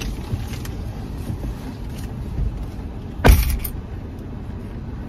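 A car door shutting with a single loud thud about three seconds in, as the occupant climbs out of the parked car, over a steady low rumble inside the cabin.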